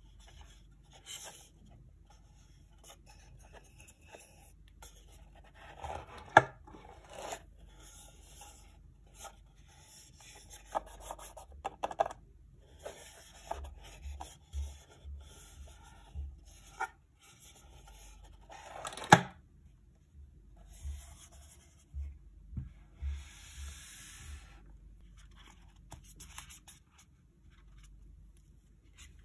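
Hands handling a wood-grain watch presentation box: rubbing and scraping across its surfaces, with scattered taps and clicks as its hinged panels are moved. Two sharper knocks stand out, about six seconds in and again near nineteen seconds.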